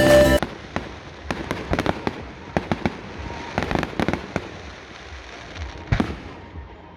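Fireworks going off: a rapid run of sharp bangs and crackles that thins out to a few scattered pops, with one more bang near the end. Music cuts off about half a second in.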